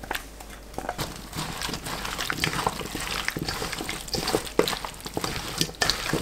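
Hands tossing pieces of brined cucumber through thick, wet chili seasoning in a bowl, making cucumber kimchi: irregular wet squelches and small crackles.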